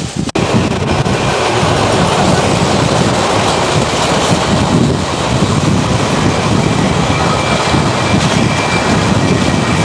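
Sydney single-deck electric train running past close by at speed: a loud, steady rumble of wheels on rail that cuts in just after the start, with a faint high whine joining about halfway through.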